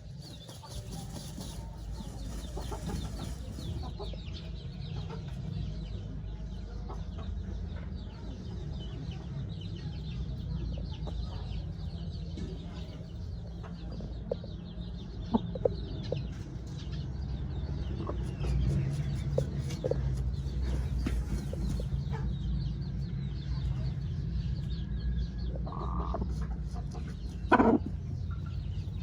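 Chickens clucking: a rooster and hen giving short scattered calls over a steady low rumble, with one louder sharp call near the end.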